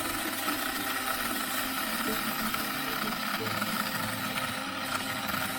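Tingmengte 8-inch mini chainsaw running steadily with a high whine, cutting off abruptly at the end.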